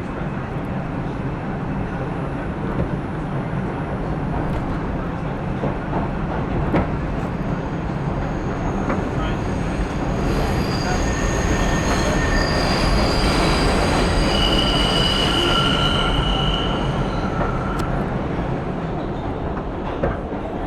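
New York City subway train (a 5 train) running between stations, heard from inside the car: a steady rumble of wheels on the track. About halfway through, high-pitched wheel squeal sets in, growing louder, then fades out a few seconds before the end.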